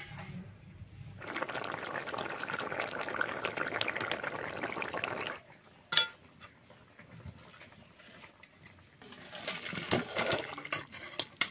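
Fish curry bubbling and sizzling in a metal wok over a wood fire for about four seconds, then cutting off. A sharp clink of a metal spoon against the pan follows, and near the end curry is scooped into a steel bowl with liquid sloshing and metal clinks.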